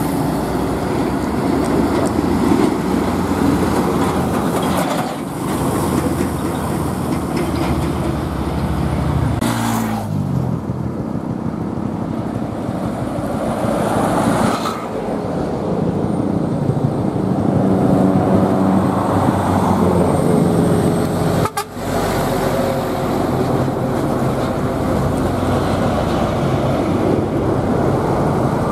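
Heavy diesel trucks driving past on the road: first a Sinotruk Howo NX280 Sitrak, then a FAW JH6 tractor unit hauling a tarped load, their engines running as they pull by. The engine note drops in pitch about a third of the way through.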